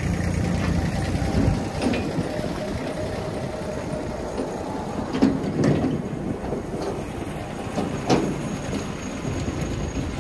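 Kubota compact tractor's diesel engine running as it drives off, towing a metal trailer that rattles and gives a few sharp clanks as it bounces over the ground. The sound fades slightly as it moves away.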